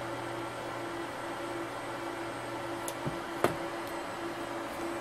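E-bike motor controller running on a bench controller tester: a steady electrical hum with a faint tone that cuts in and out, and a sharp click a little past halfway.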